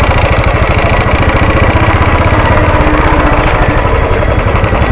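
Motorcycle engine running at low revs with an even pulsing beat as the bike rolls slowly.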